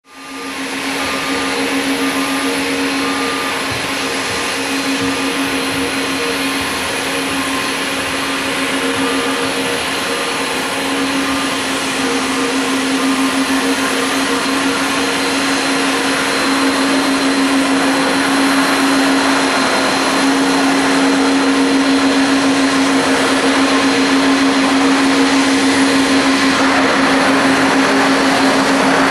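Jet engines of a Boeing 767-300 airliner on final approach and touchdown: a steady rush with a constant whining hum that grows slightly louder as the aircraft comes closer.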